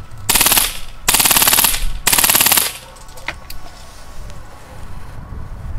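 HPA-powered Lancer Tactical M2 heavy machine gun airsoft replica firing three short full-auto bursts of rapid clicks in quick succession, each about half a second long, over the first three seconds.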